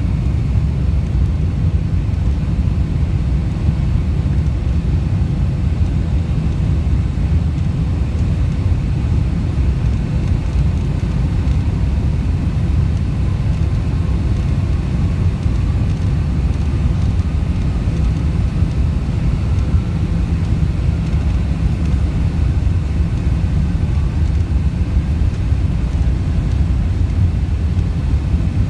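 Cabin noise of a Boeing 747-400 taxiing, heard from a seat over the wing: a steady low rumble from its Pratt & Whitney PW4056 turbofans at taxi power, with a faint steady whine above it.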